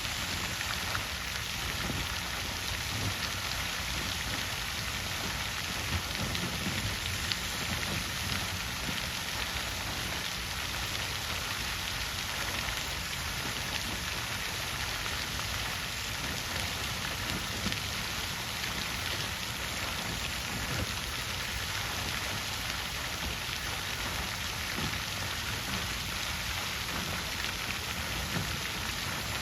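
Water fountain splashing steadily: an even hiss of falling water with small droplet splashes throughout.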